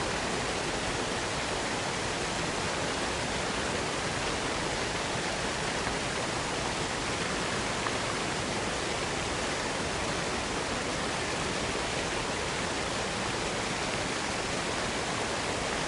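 Waterfall crashing down onto a stone bridge: a steady, unbroken rush of falling water.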